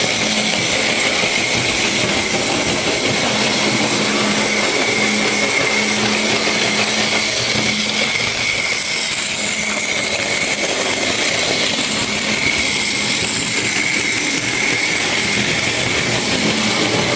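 Märklin model railway running: a steady mechanical whir from the locomotive motor and track, with a thin whine held throughout.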